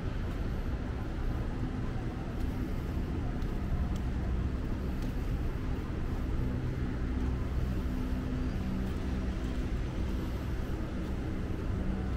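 Road traffic: a steady rumble of cars running along a city road, with a low engine hum.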